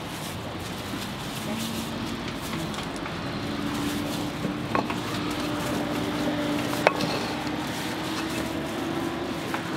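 Kitchen noise at a hotteok stall: a steady hiss with a low hum, and a few light clacks of utensils, the sharpest about seven seconds in.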